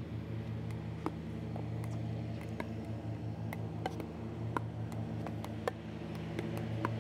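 Pickleball paddles hitting plastic balls: sharp pocks at an irregular pace, roughly one or two a second, from players dinking across the net, over a steady low hum.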